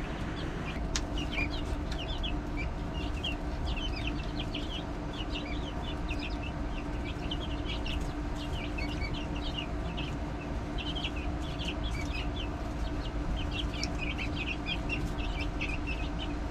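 A flock of young chicks peeping continuously: many short, high-pitched peeps overlapping one another, over a steady low hum.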